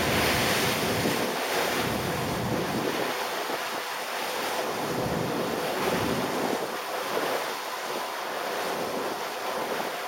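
Wind buffeting the microphone over the steady rush of a motor boat's churning wake at speed.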